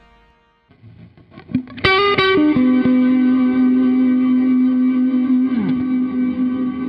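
Background music: electric guitar with effects and distortion. After a quiet first second with a few soft plucked notes, it strikes a loud note about two seconds in and holds it, sustained, to the end.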